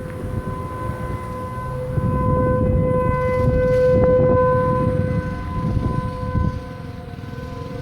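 Outdoor tornado warning siren sounding its steady alert tone in a scheduled siren test. It holds one pitch, swells louder about halfway through and then fades back, over a low rumble.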